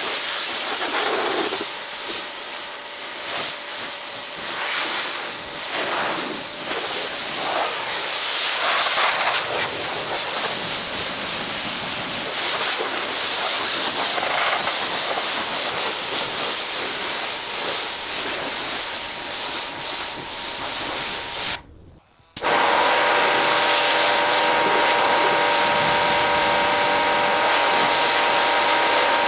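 High-pressure water spray hissing unevenly against a car's bodywork. After a short gap about three-quarters through, a Kränzle 1152TST pressure washer runs steadily, its motor and pump giving a constant hum of several tones over the hiss of the jet rinsing the car.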